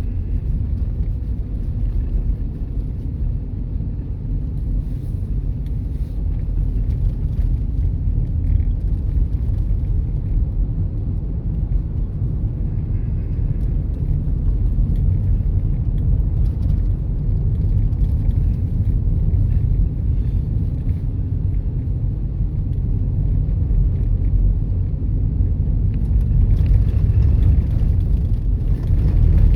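Car driving: a steady low rumble of road and engine noise, growing a little louder near the end.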